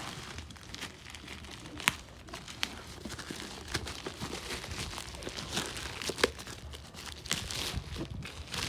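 Packaging crinkling and rustling as it is handled during unboxing, with scattered sharp clicks and crackles, the loudest about two seconds in.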